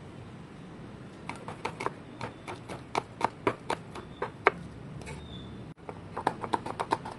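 Cleaver blade knocking on a wooden cutting board as red bird's eye chilies are finely sliced: a run of sharp chops about four a second starting about a second in, a pause in the middle, then quicker steady chopping near the end.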